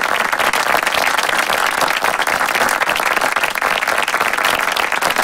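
Crowd applause: many hands clapping in a dense, steady patter.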